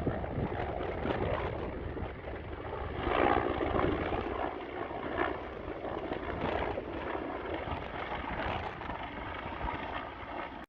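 Wind rumbling on the microphone over water noise, swelling louder about three seconds in.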